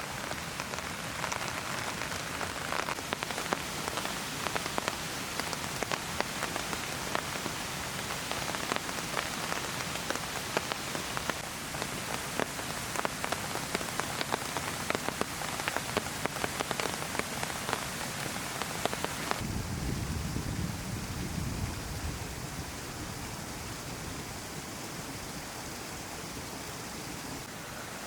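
Heavy rain falling, with many sharp individual drop hits over a steady hiss. About two-thirds of the way through it changes abruptly to a steadier rushing noise with a brief low rumble.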